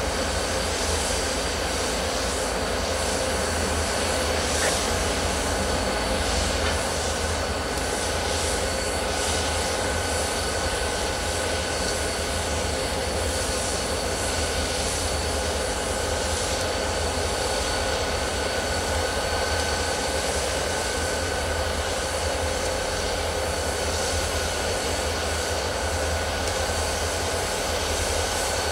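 CSX GE ES44AH diesel locomotives running light through the yard, their V12 diesel engines giving a steady low drone with a thin steady whine over it.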